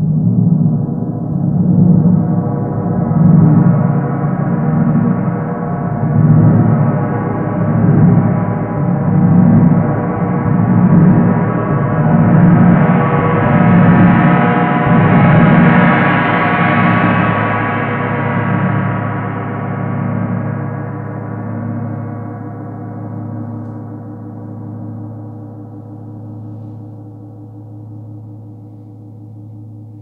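32-inch hand-hammered stainless steel RawGong, close in character to a wind gong, played with a large soft mallet. Even, gentle strokes about every second and a half build a swelling shimmer that brightens to a peak around the middle, then the strokes stop and the gong rings on, slowly fading.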